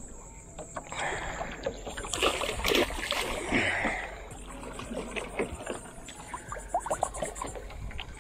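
A hooked tarpon thrashing at the surface beside a small boat, with irregular splashing and sloshing of water.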